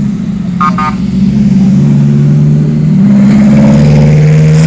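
Motor vehicle engine running loud, its pitch rising as it speeds up, with a short double horn beep about half a second in.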